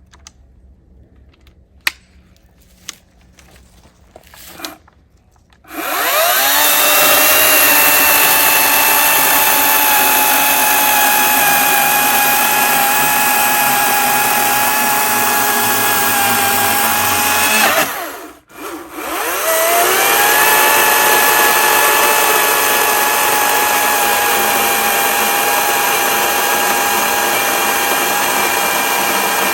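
An Echo 58V brushless battery chainsaw: a few clicks, then about six seconds in its electric motor spins up to a steady high whine and runs, cutting a log. Just past the middle it cuts out for a moment and spins straight back up.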